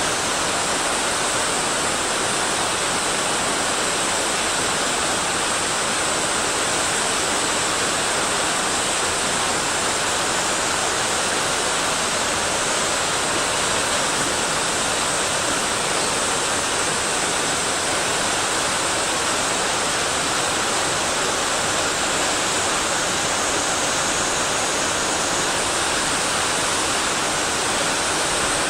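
Mountain stream and small waterfall rushing steadily, an even hiss of falling and flowing water.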